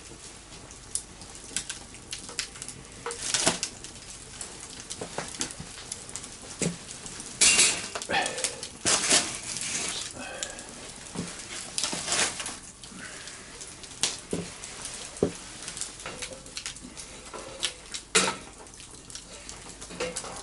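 Wood fire crackling and popping, with metal clattering and knocks, loudest a little before the middle, as a wire grill rack is set over the fire and a pot placed on it.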